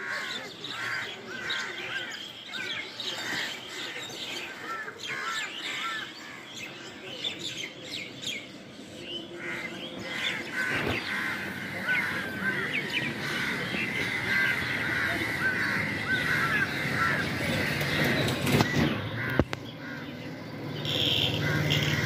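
A flock of birds chirping and calling together, many short overlapping calls with no break.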